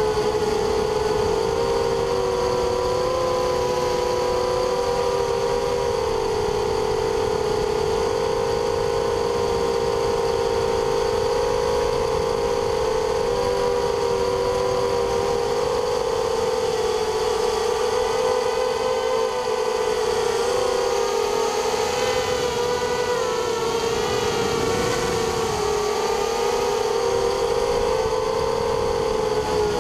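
A hexacopter's six 2300 kV brushless motors and propellers buzzing in flight, heard from on board. The several close whines waver and shift in pitch together as the throttle changes, over a low rushing noise.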